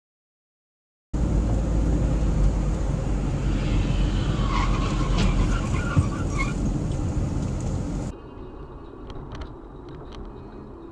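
Steady, loud road and engine noise heard inside a moving car on a highway, with a few short high-pitched squeaks about halfway through. About eight seconds in it cuts abruptly to a much quieter car interior with faint clicks.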